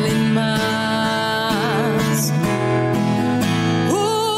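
A Spanish-language Christian song: a voice holds long notes with vibrato over steady instrumental backing.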